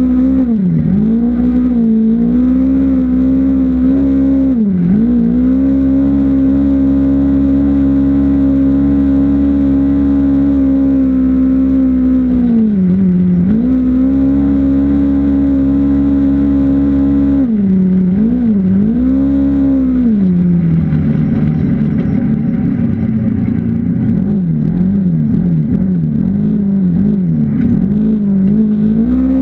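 Off-road vehicle engine running hard at a steady high pitch, dropping briefly and climbing back several times as the throttle is eased and reapplied, then rising and falling unevenly near the end.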